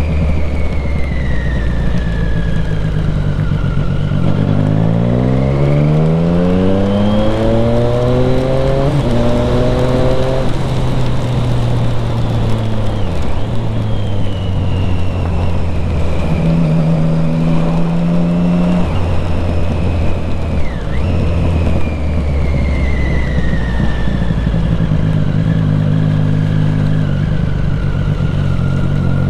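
Triumph Street Triple 675R's 675 cc inline three-cylinder engine under way, heard from the rider's seat. It accelerates with rising pitch through several seconds early on, cruises steadily, and picks up again near the end, over a steady rush of wind and wet-road noise.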